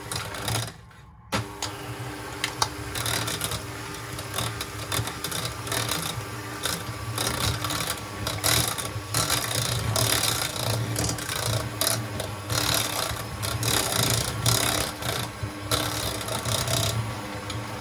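Bosch electric hand mixer running, its beaters churning thick choux pastry dough in a stainless steel pot with a steady motor hum and a scraping rasp. It cuts out briefly about a second in, then runs on steadily.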